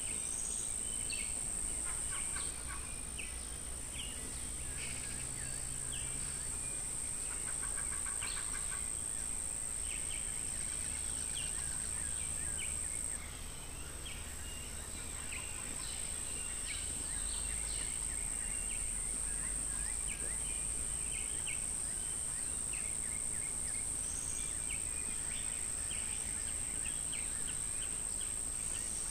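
A steady, high-pitched insect chorus drones on, breaking off briefly about halfway through. Scattered short bird chirps sound over it.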